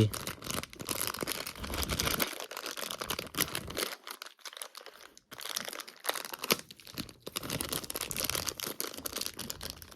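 Plastic packaging crinkling and tearing as a Beyblade part is worked out of its bag: a run of small crackles and rustles with a brief lull about halfway through.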